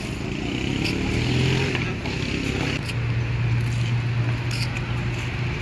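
A motor vehicle's engine: a steady low hum that sets in about a second in, with a few sharp clicks and scuffs over it.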